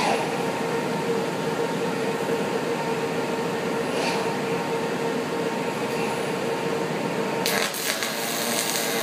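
OTC welding robot arc-welding, a steady crackling hiss over a constant hum, with a brief sharp sound about seven and a half seconds in.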